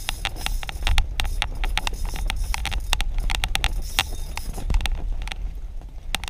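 Spinning reel clicking unevenly, several times a second, while a hooked lake trout is fought up through the ice hole, over a steady low rumble.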